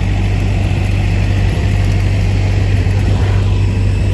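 Loud, steady engine drone with a deep low hum.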